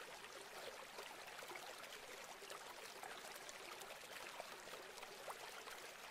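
Faint steady rush of muddy floodwater spilling over from a full pond and running in a shallow sheet across the ground.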